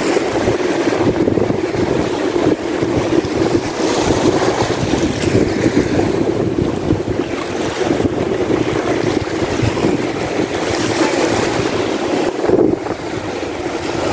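Wind buffeting the microphone over small surf waves breaking on a sandy beach, a steady rushing noise.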